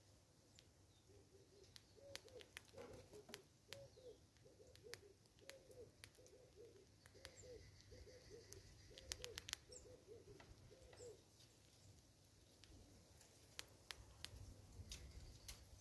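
A bird calls a faint, evenly paced series of low notes, about a dozen of them over some nine seconds, starting about two seconds in. Sharp faint clicks are scattered throughout.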